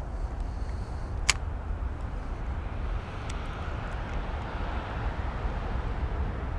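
Steady low outdoor rumble with one sharp click about a second in and a fainter click a couple of seconds later.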